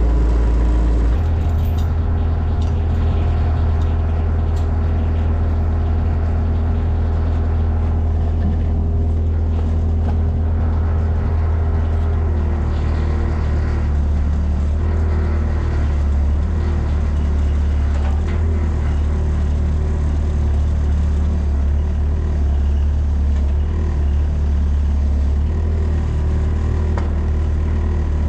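Mini excavator's diesel engine running steadily with a deep hum, its speed stepping up about a second in and then holding.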